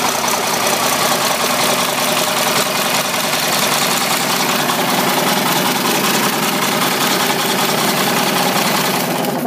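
International DT466 inline-six turbo-diesel engine running steadily at idle, loud and close, with an even, fast clatter.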